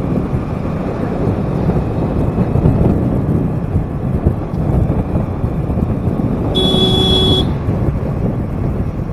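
Wind rushing over the microphone and road noise while riding through traffic, with one short vehicle horn honk about two-thirds of the way through.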